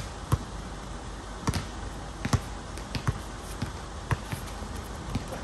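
Basketball bouncing on a hard court during dribbling: a string of irregularly spaced thuds, about one or two a second.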